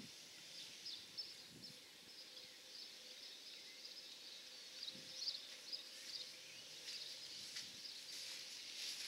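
Faint outdoor ambience with high, irregular chirping in the background and a few soft footfalls on grass.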